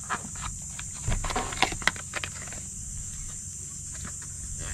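A small cardboard box of braided fishing line being handled and torn open by hand: scattered clicks, crinkles and rustles of cardboard and packaging, busiest in the first couple of seconds and sparser after.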